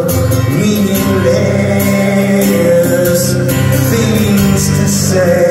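Live rock song played on a strummed acoustic guitar with sustained chords, which change about half a second in and again near the end.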